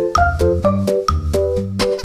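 Background music: an upbeat keyboard tune over a bass line, with a steady quick beat.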